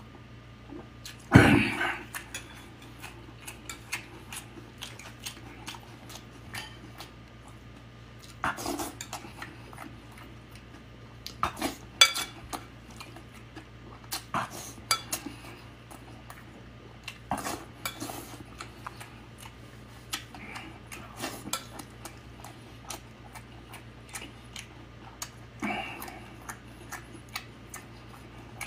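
A metal spoon clinks and scrapes on a ceramic plate of rice and beef, between close-miked chewing. There is a louder knock about a second and a half in.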